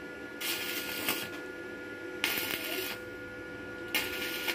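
Stick welding with an inverter arc welder: three short bursts of arc crackle, each under a second, as the electrode strikes and burns, with a faint steady high tone underneath.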